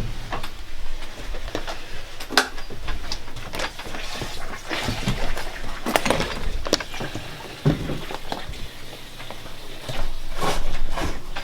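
Water splashing and spattering around a running sump pump, over a faint low hum, with irregular knocks and clicks.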